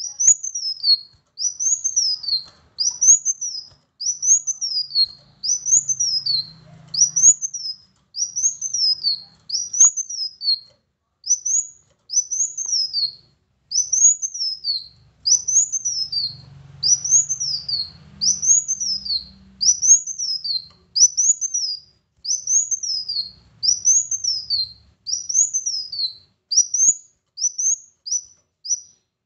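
Male kolibri wulung sunbird calling over and over: a loud, high, thin note that rises briefly then slurs down, repeated about once a second in a steady run.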